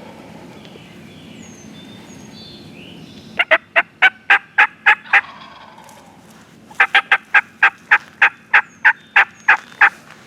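Turkey yelping: two runs of sharp, evenly spaced notes, about eight in the first and about thirteen in the second, starting a little over a third of the way in. Faint songbird chirps come before the first run.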